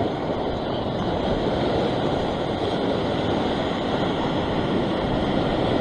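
Steady rushing of strong wind on the microphone mixed with waves washing against the rocks.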